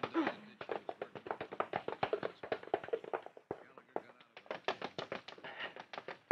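Radio-drama sound effects of a scuffle turning into a chase: a rapid, uneven run of taps and knocks like hurried feet on a hard floor, thinning out briefly a little past halfway.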